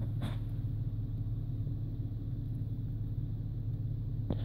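Toyota FJ Cruiser's V6 engine idling with a steady low hum.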